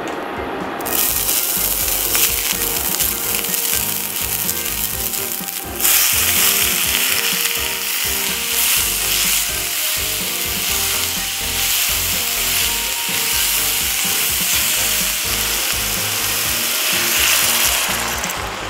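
Daikon, carrot and mushroom slices sizzling in hot sesame oil in a cast-iron skillet. The sizzle starts about a second in and jumps louder about six seconds in as more goes into the pan. It dies down near the end as water is poured in.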